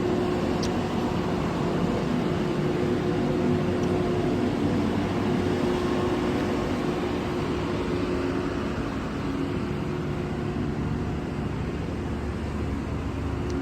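Heavy engines running steadily at a road construction site: a constant drone with a steady hum.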